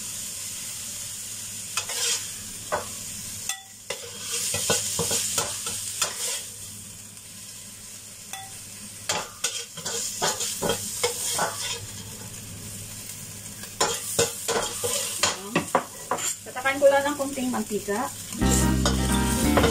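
Sliced pork sizzling in a wok while a metal spatula stirs and scrapes it, with many sharp clicks of the spatula against the pan. Background music comes in near the end.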